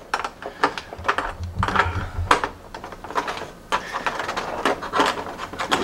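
Irregular clicks and knocks of small hard plastic pieces being handled and pulled out of a moulded plastic packaging tray.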